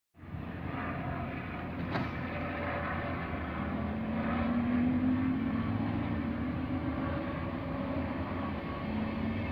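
A train of n-Wagen (Silberling) push-pull coaches rolling slowly along the platform, a steady rumble of wheels on track with a low hum that swells and rises a little about four seconds in.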